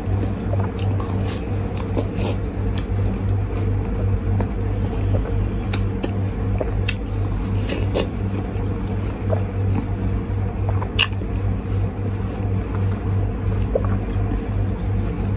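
A person biting into and chewing juicy raw watermelon flesh, with short wet mouth clicks at irregular moments, one sharper than the rest about eleven seconds in, over a steady low hum.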